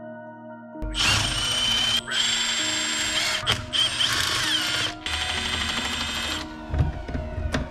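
Small cordless power tool whirring in four short runs, loosening bolts on a manual transmission case, with a few sharp knocks of metal parts near the end.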